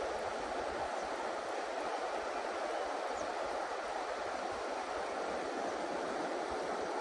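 Steady rushing of a river running over a shallow, rocky riffle.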